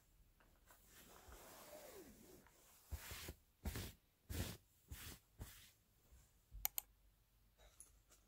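Quiet handling sounds on a bed: a hand brushing over the bedsheet in about six short rustling strokes, then two quick sharp clicks near the end.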